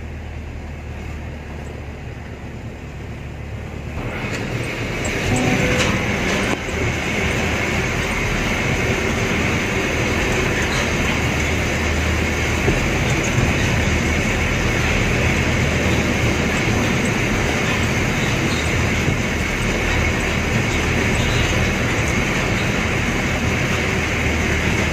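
Light goods truck on the move: steady engine hum with road noise and rattle, getting louder about four seconds in and then holding steady.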